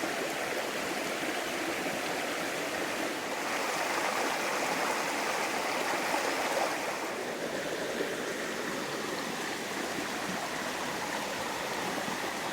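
Creek water running in a steady rush, a little fuller for a few seconds in the middle.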